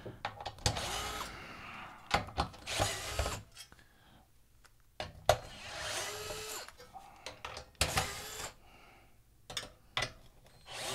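Cordless DeWalt drill-driver with a 7/32-inch socket backing screws out of the metal back cover of a 1984–89 Corvette digital instrument cluster. It runs in several short bursts, each a brief rising whine, with small clicks of handling between.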